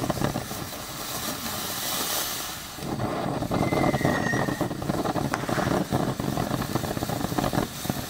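Ground firework fountain burning: a steady rushing hiss of sparks threaded with many small crackles, with a short thin tone about three and a half seconds in.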